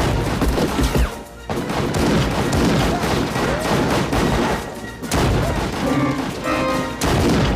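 Movie gunfight sound: rapid gunfire with loud bangs and crashes, mixed with a film score.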